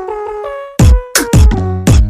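Electronic music: a steady synth melody over deep, pitch-dropping kick drum hits in a repeating beat.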